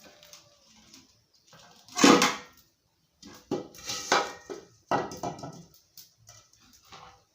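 Metal cooking pots and utensils clanking and knocking as the pots are handled. There is one loud clatter about two seconds in, then a run of ringing clanks over the next couple of seconds.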